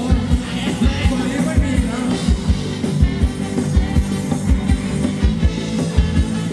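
Live band playing upbeat Thai ramwong dance music, with a fast, steady drum beat and singing.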